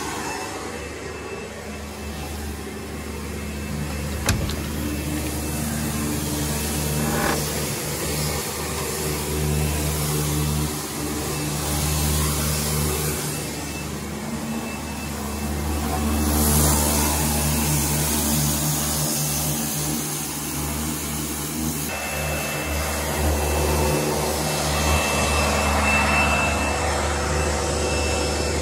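Pressure washer running: a steady motor drone with a hissing noise that swells and fades, louder again from about two thirds of the way in, when a thin high whine joins it.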